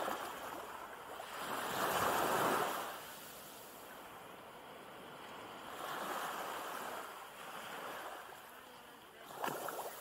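Small waves breaking and washing up onto a sandy beach. The surf swells and fades every few seconds and is loudest about two seconds in. A short, sharp burst comes near the end.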